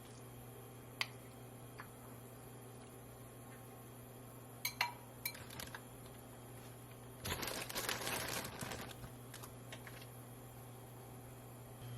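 Kitchen handling sounds over a steady low hum: a few sharp clicks and clinks, then a noisy burst of about two seconds, then more light clicks.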